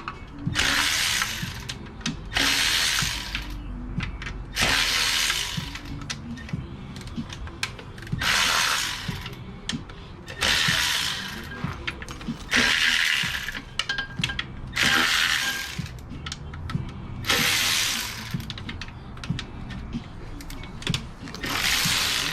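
Ratchet wrench working in repeated spells of about a second each, every couple of seconds, as the oil pan bolts are loosened.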